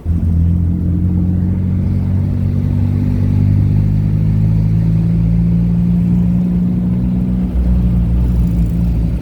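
Dune buggy engine running steadily while driving, with a brief dip in level about seven and a half seconds in.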